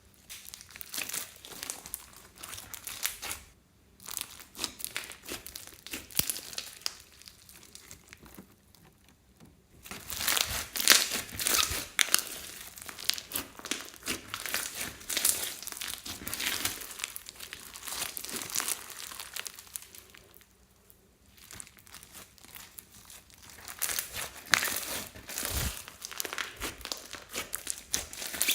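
Hands kneading and squishing slime mixed with foam beads, with dense, irregular crackling and popping. The sound pauses briefly a few times between handfuls.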